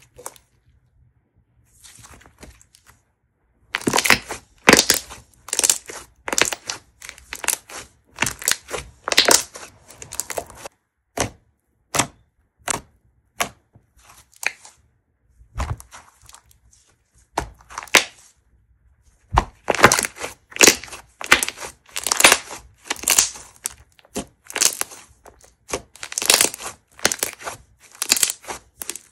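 A thick slime being squeezed, folded and poked with the fingers, giving a quick, irregular series of distinct crackling pops. The sounds start about three seconds in.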